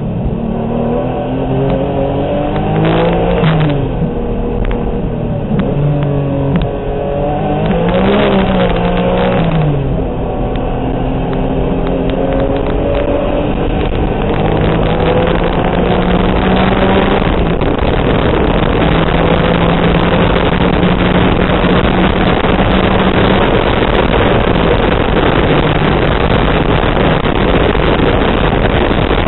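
Turbocharged Honda NSX race car's V6 engine heard from inside the cockpit at race pace. For the first ten seconds or so the revs rise and fall several times through the corners. Then the engine holds steady at high revs under a loud rushing of wind and road noise as the car runs flat out on the oval banking.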